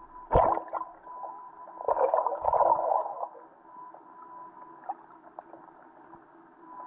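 Muffled underwater sound picked up by a GoPro in its waterproof housing, dull and cut off at the top, with a thin steady tone. A sharp knock comes just after the start, and a rough muffled rumble follows about two to three seconds in.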